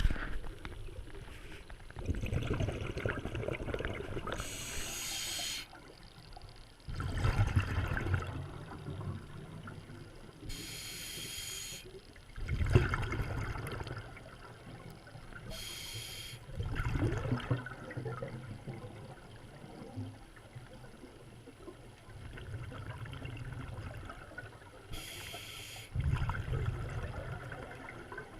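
Scuba diver breathing through a regulator underwater: a hiss on each inhale, then a low rumbling burst of exhaled bubbles, repeating about every five seconds.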